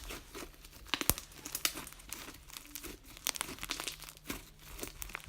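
Slime being squeezed and played with by hand, making irregular crackling clicks and small pops; the slime is a bouncy one made with a lot of shaving cream.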